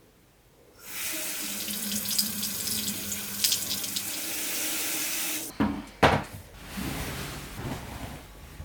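Water running from a tap into a sink, starting about a second in and cutting off suddenly after about four and a half seconds. Two sharp knocks follow, the second the loudest sound, then a quieter rush of noise.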